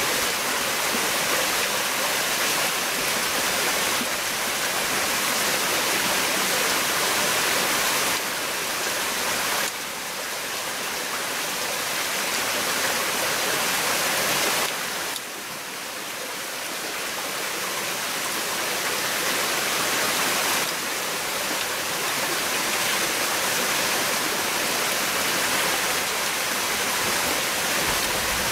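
Steady rushing water noise, an even hiss that drops suddenly in level a few times and comes back up.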